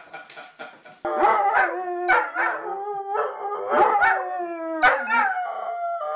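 A person laughing briefly, then from about a second in, a basset hound and a black dog howling together: long, overlapping howls that bend up and down in pitch.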